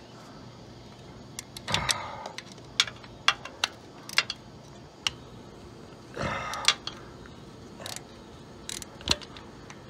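Metal hand tools clicking and clinking as a wrench loosens the 12 mm bolt on the back of an alternator, with two short rattling bursts, one about two seconds in and one about six seconds in.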